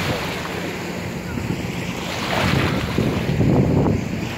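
Small sea waves washing in the shallows, with wind gusting on the microphone, strongest about halfway through. A jet ski's engine drones faintly in the distance.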